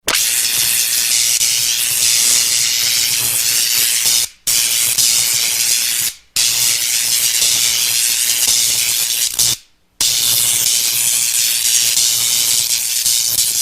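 Loud, harsh hissing like escaping steam or spray, over a steady low hum, in four long bursts broken by brief cut-offs.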